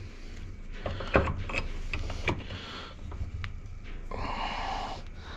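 Metal gearbox parts knocking and clinking as the Tofaş four-speed gearbox's direct-drive shaft is worked out of the casing by hand, with a short scraping, sliding noise about four seconds in.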